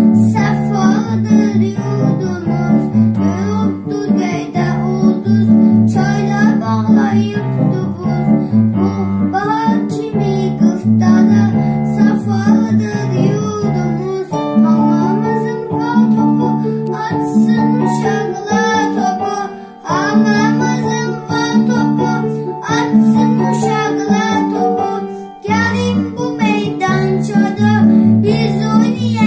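A boy singing a children's song along with a karaoke backing track of plucked strings over a steady, repeating bass line.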